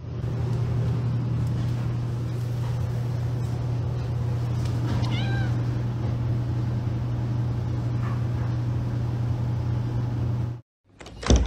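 Domestic cat vocalising: one short meow that rises and falls about five seconds in, over a steady low drone. The sound breaks off near the end and a sharp knock follows.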